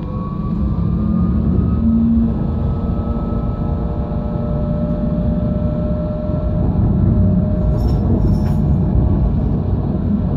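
Alstom RegioCitadis tram under way: the electric traction motors whine with a rising pitch over the first second or two as it picks up speed, then run steadily over a loud wheel-on-rail rumble. A couple of short clicks come about eight seconds in.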